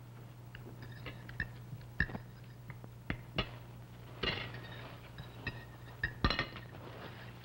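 Cutlery clinking and scraping on china plates and bowls as several people eat at a table: a scattering of short, light clicks and clinks.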